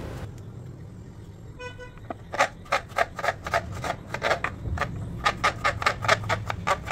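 Serrated knife dicing unripe green avocado on a plastic cutting board: quick, regular knocks, several a second, starting about two seconds in. A short beep sounds just before the chopping begins.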